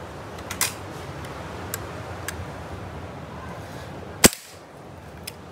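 Rossi Dione 4.5 mm spring-piston air rifle firing one shot, a single sharp crack about four seconds in. A few light clicks come before it.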